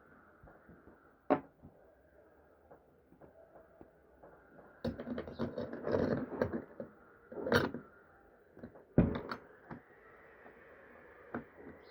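Scattered knocks and clicks of small parts and tools being handled, loudest in a cluster around the middle, over a faint steady hum.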